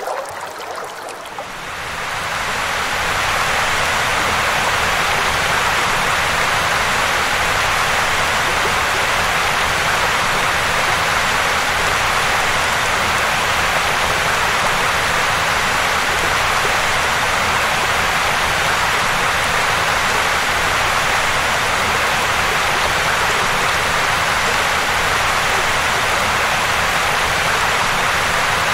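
Shallow, fast river current rushing over a stony bed, heard close to the water: a steady, dense rushing hiss that swells up over the first two seconds and then holds level.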